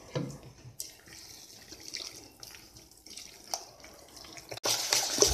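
A hand squishing and mixing wet, coarse rice-and-toor-dal batter in a steel bowl as water is worked in, with small wet slaps and drips. It gets louder near the end.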